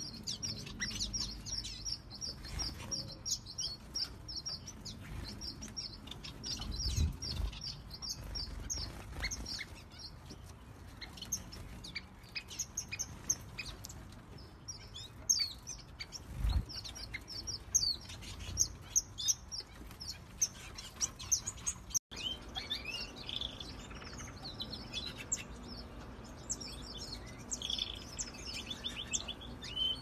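A group of small aviary finches chirping: a busy, continuous stream of short high calls, many a second. After a brief break about two-thirds through, the chirps come somewhat lower in pitch.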